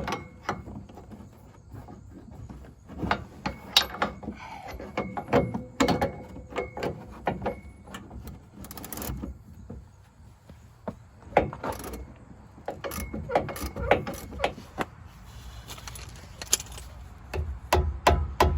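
Metal tools and parts clinking and knocking at irregular intervals during work on a truck's front suspension, some clinks ringing briefly. Near the end a run of quicker, evenly spaced knocks begins.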